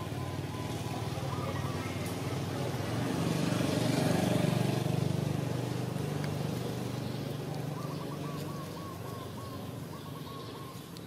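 A motor vehicle's engine droning, growing louder to a peak around the middle and then fading away, as a vehicle passes by. Faint wavering chirps sound near the start and again in the last few seconds.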